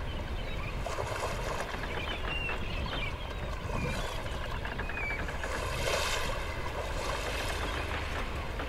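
Tour boat under way at sea: a steady low engine rumble under a rush of wind and water, swelling briefly about six seconds in.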